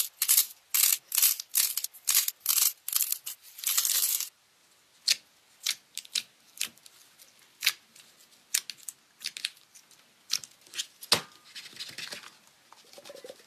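Hands squeezing and pulling apart a cluster of yellow and pink squishy balls whose coating cracks and tears, giving rapid loud crackling, about three bursts a second. About four seconds in it changes to glossy slime in a plastic tub being poked and handled, with sparse, quieter wet clicks and pops and one sharper click near the end.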